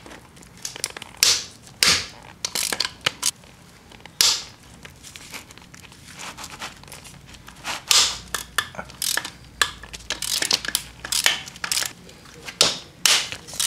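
Hand ratchet clicking, with metal-on-metal knocks and clatter from the socket and extension, as the last bolts holding the two halves of a Subaru EJ25 engine block together are loosened and backed out. The clicks come in irregular bursts, with a quicker run of clicks near the middle.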